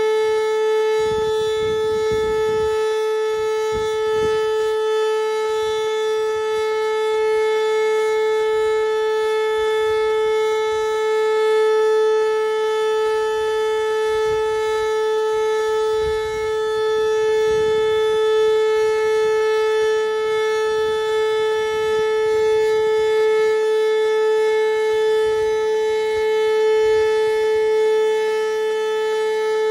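Outdoor tornado warning siren sounding a steady tone, holding one pitch without rising or falling, with small swells in loudness.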